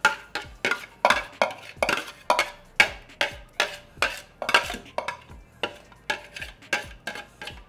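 A spoon scraping and knocking against the inside of a Cuisinart food processor's plastic work bowl, about three strokes a second, clearing out the last of the blended vegetables.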